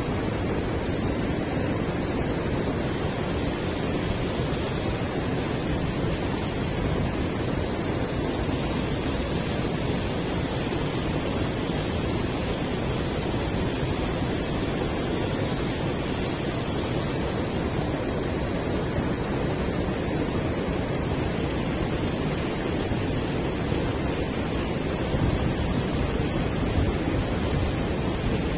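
Steady rushing of river water pouring over a low concrete weir spillway.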